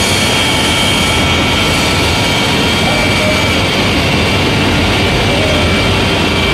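Gypsum board PVC laminating machine running: loud, steady machinery noise with a constant whine of several high tones over a low hum.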